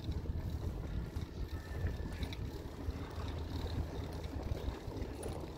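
Low, uneven wind rumble buffeting the microphone.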